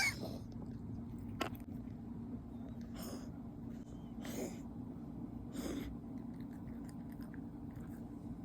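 Siberian cat making sharp, noisy bursts of air through the nose, of the sneeze or reverse-sneeze kind: one loud burst at the start, then three more about a second and a half apart.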